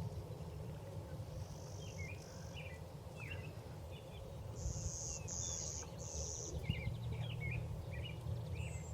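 Small songbirds chirping here and there, with a high thin buzz heard once and then three times in a row near the middle, over a steady low rumble of wind or mic noise.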